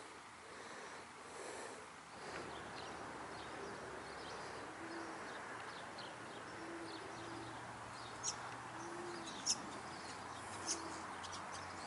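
Faint rural outdoor ambience with birds: a few short low calls spread through, and several sharp high chirps in the second half.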